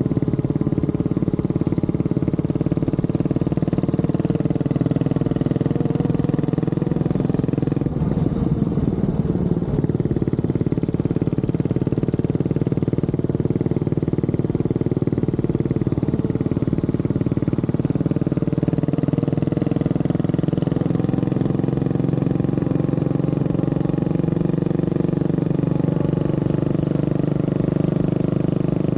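Honda CB400SS's air-cooled single-cylinder engine running steadily under way, its pitch wavering slightly with small throttle changes.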